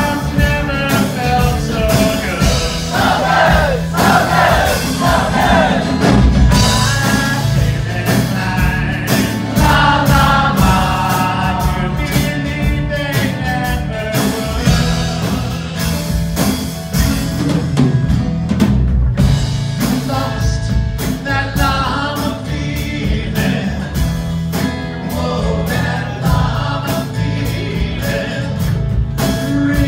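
Live band music on guitars and drums, with singing.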